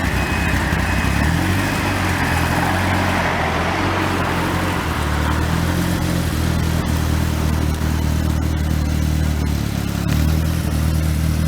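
Car engine running steadily at low revs, its note shifting slightly now and then, with a wash of traffic noise that fades away over the first few seconds.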